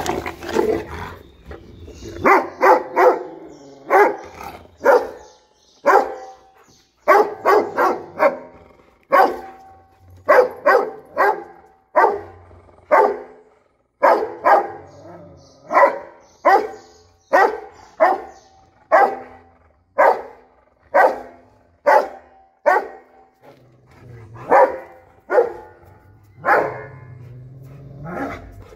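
Rottweilers squabbling: a short growling scuffle at the start, then sharp barking over and over, about one to two barks a second, until near the end.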